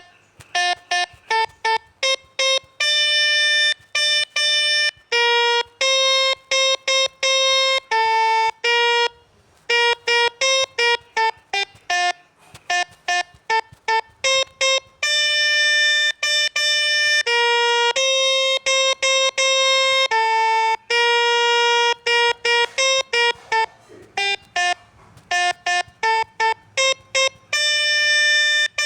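Melodica (pianika) playing the 'telolet' bus-horn melody, one note at a time: quick runs of short notes broken by longer held notes, with a brief pause between phrases.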